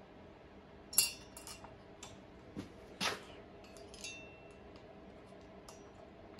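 A few sharp metallic clinks and clacks of small hand tools and metal parts being handled, some ringing briefly. The loudest comes about a second in and another about three seconds in, with smaller taps between and after.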